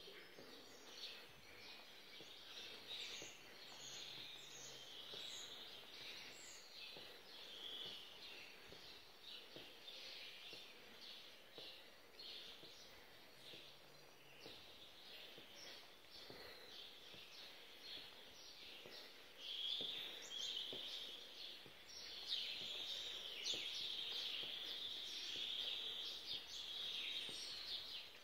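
Many small birds chirping and twittering in a dense, continuous chorus of short high calls, growing busier and louder about two-thirds of the way through.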